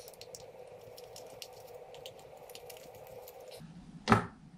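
Light clicking and ticking of a screwdriver loosening a terminal screw on a small plastic junction box, over a faint steady hum that stops a little before the end. About four seconds in comes one sharp knock as the screwdriver is set down on the side table.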